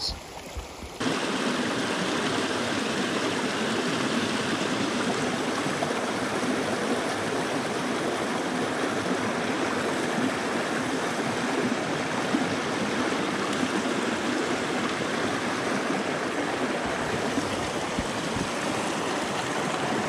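Rushing water of a rocky mountain stream spilling over a small cascade, a steady rush that comes in suddenly about a second in.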